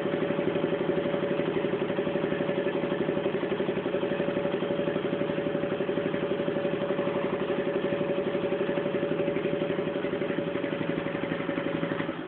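Honda CG Fan motorcycle's single-cylinder four-stroke engine idling steadily through a loud, worn Torbal aftermarket exhaust, with an even, rapid pulsing beat.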